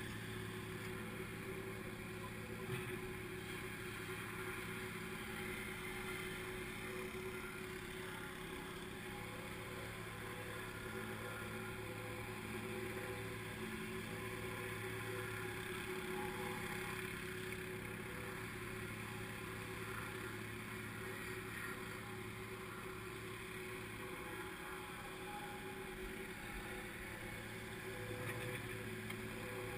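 Plate compactor running steadily as it compacts a layer of the gravel footpath base: a continuous, even engine drone with a low hum.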